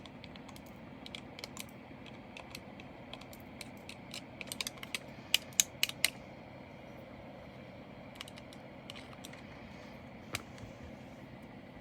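Scattered light clicks and ticks of loose diamond painting drills (small resin beads) being handled and tipped into a bag, with a quick run of clicks around five to six seconds in and a single click near the end.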